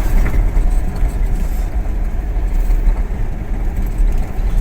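Steady engine and road rumble of a truck loaded with palm fruit, driving along a road, heard from inside the cab.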